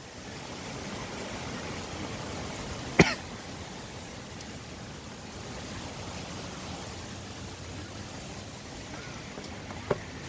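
Wind and rain making a steady rushing noise, with a sudden loud burst about three seconds in and a smaller one near the end.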